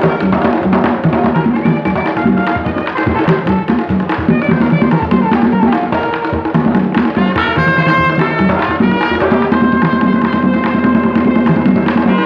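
Live Haitian folk band: tall hand drums beaten in a fast, dense rhythm, with saxophones and trumpet joining in long held notes over the drums from about halfway through.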